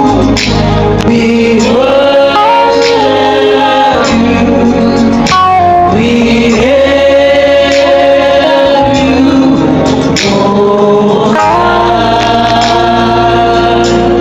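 Gospel praise-and-worship singing: voices holding long notes that slide between pitches over steady low bass notes.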